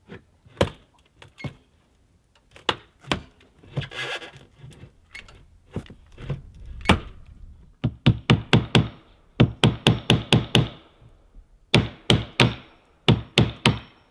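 A hammer knocking against the cabin's wooden wall: a few scattered knocks at first, then from about eight seconds in, quick runs of rapid strikes, several a second.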